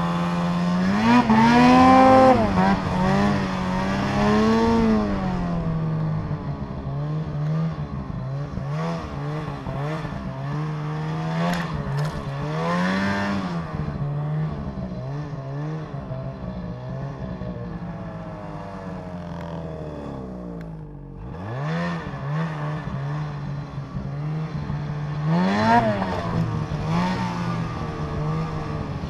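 Snowmobile engine under varying throttle, its pitch rising and falling over and over. About 21 seconds in it drops briefly to a low note, then climbs again.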